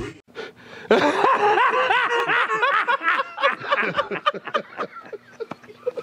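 Hearty laughter that breaks out suddenly about a second in and goes on in quick rising-and-falling peals.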